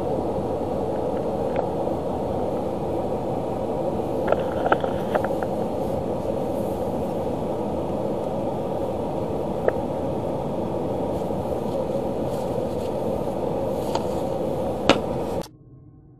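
Steady rushing noise in a car's cabin, with a few light clicks about four to five seconds in, near ten seconds and near fifteen seconds; it cuts off suddenly shortly before the end.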